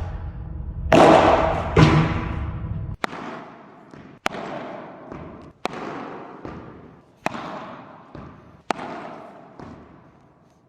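Padel ball impacts: two heavy booming hits with a low rumble in the first three seconds, then sharp hits about every second and a half, each trailing off in reverb, with fainter hits between, fading away near the end.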